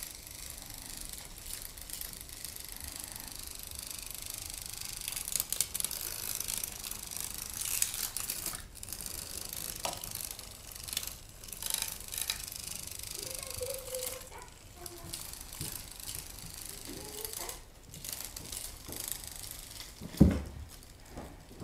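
Motorised butterfly cat toy whirring and clicking steadily as its motor swings the butterfly around on its wire. One loud, deep thump near the end.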